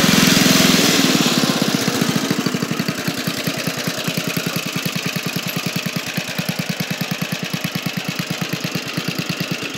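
Small engine of an old Dynamark riding lawnmower running. It eases back about a second in, then settles into an even, lumpy idle of about seven to eight beats a second. The engine has been freshly brought back to life after 25 years of sitting.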